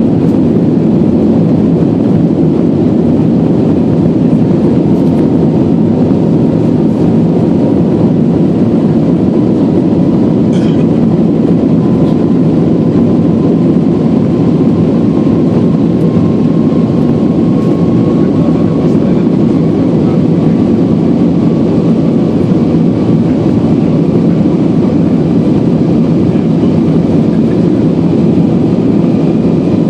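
Steady cabin roar of an Airbus A321 in the climb, from its IAE V2500 engines and the airflow past the fuselage, heard from a window seat. A faint whine slowly rises in pitch through it.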